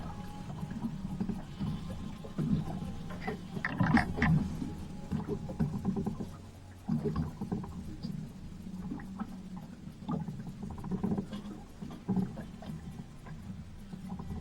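Sounds aboard a small fishing boat at sea: a steady low rumble with scattered knocks and clunks, and a louder cluster of knocks about four seconds in.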